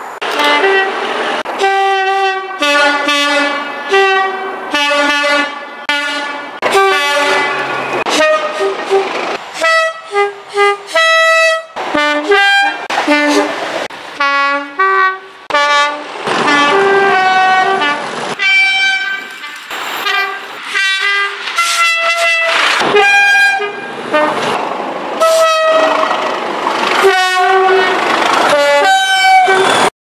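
British Rail Class 37 diesel locomotives sounding their two-tone horns, one after another: a long run of short and long blasts alternating between a high and a low note, over the noise of the passing trains.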